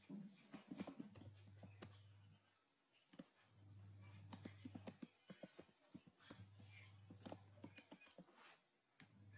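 Faint computer keyboard typing: runs of quick, irregular key clicks, over a low steady hum that comes and goes.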